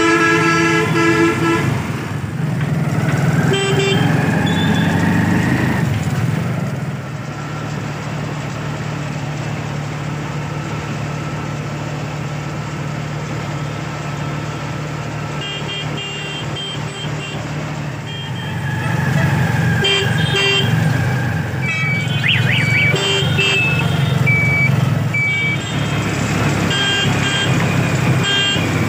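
Motorcycle engine of a three-wheeled mishuk passenger vehicle running on the move: its note rises over the first few seconds as it speeds up, then it runs steadily. Horns toot, one longer blast at the start and several short beeps in the second half.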